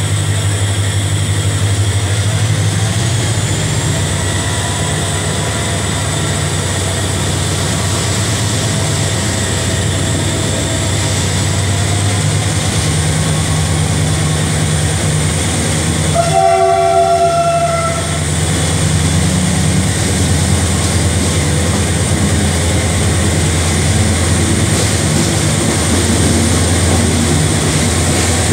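Diesel locomotive engine running steadily as it hauls the train. About sixteen seconds in, its horn gives one blast of about a second and a half.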